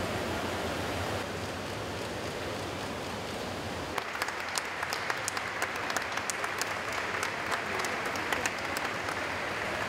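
Steady hubbub of an indoor swimming pool. About four seconds in, scattered hand clapping begins and continues as sparse, irregular claps.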